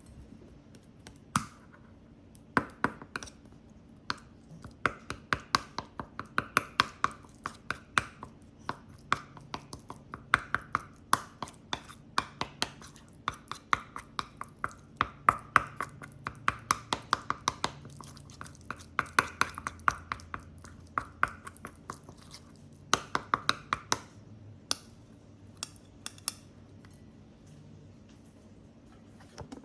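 A bichon frise chewing dry food: fast, uneven runs of sharp crunches and clinks, with short pauses between mouthfuls.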